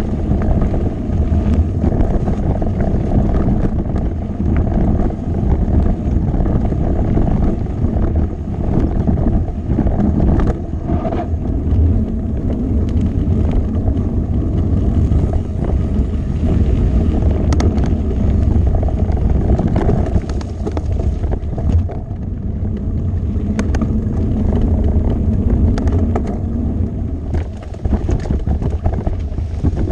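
Mountain bike riding down a dirt and gravel singletrack: a steady low rumble of wind on the microphone and knobby tyres rolling over the trail surface, with scattered sharp clicks and rattles from the bike over rough ground.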